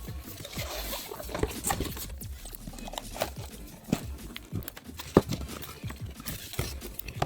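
Irregular small clicks, taps and rustles of computer parts being handled and fitted during a PC assembly, with one sharper click about five seconds in.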